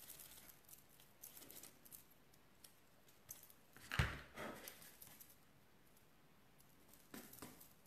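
Quiet handling noises of hands working sugarpaste at a table: faint rustles and light taps, with one soft knock about four seconds in as something is set down on the table.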